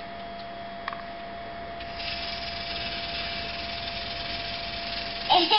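Small electric motor of a battery-powered toy train engine whirring, switched on about two seconds in while held in the hands. A child's voice briefly near the end.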